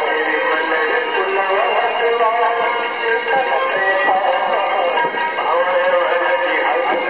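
Aarti music: a voice singing a devotional melody, with bells ringing.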